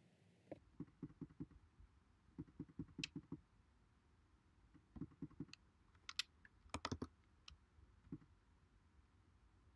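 Faint computer keyboard typing and mouse clicks, in several short runs of quick taps.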